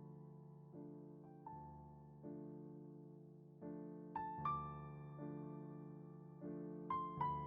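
Soft, slow piano background music, single notes and chords struck about once a second and left to ring.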